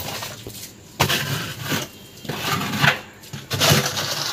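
Wet cement mortar being scraped and worked over brickwork, in about four separate strokes.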